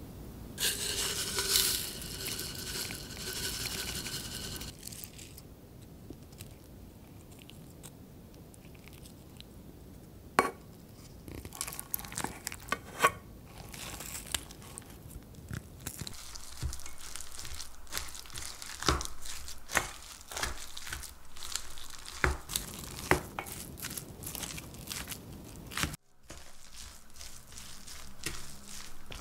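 Oil pouring from a bottle onto the food for about four seconds, then a wooden spoon mixing bibimbap rice in a brass bowl: wet rice squishing, with the spoon scraping and knocking against the metal.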